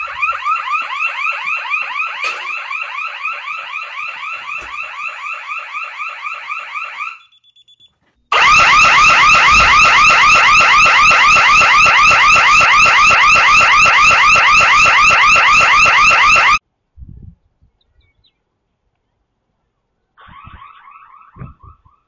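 Security intrusion alarm siren sounding a rapid, repeating warble, set off by opening a protected door while the system was still armed. It stops about seven seconds in and comes back louder a second later for about eight seconds. It stops again and returns faintly near the end.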